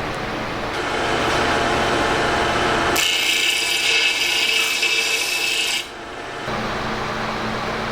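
Power tool abrading steel in a workshop, running steadily. About three seconds in it turns to a harsher, high-pitched hiss, which drops away near six seconds, leaving a steadier lower hum.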